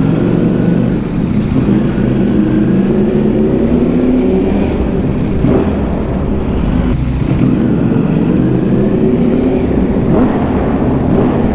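Ducati Panigale V4R's 998 cc V4 engine through an Akrapovic exhaust, ridden under throttle with the engine note rising and falling. The note dips briefly about five and a half seconds in and again near the end.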